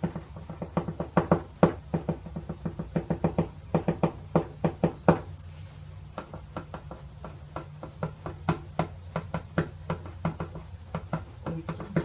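Rapid light taps of a soft pastel stick being dabbed against paper clipped to a drawing board, about five or six a second, thinning out for a few seconds midway. A steady low hum runs underneath.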